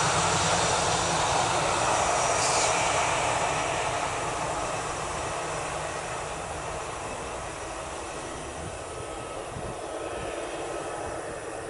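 Jet engines of an Airbus A320-216, its CFM56 turbofans, running at low taxi thrust as the airliner turns at the runway end; a steady rushing hiss and rumble that fades gradually.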